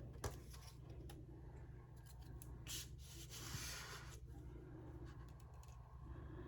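Paper being handled on a craft table: a couple of faint clicks just after the start, a short swish, then a longer soft rustle.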